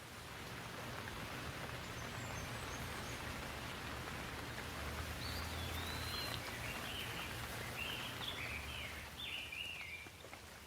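Steady rain falling, building over the first second and then holding even, with a low rumble underneath. Through the middle and later part a bird sings a run of short chirps over the rain.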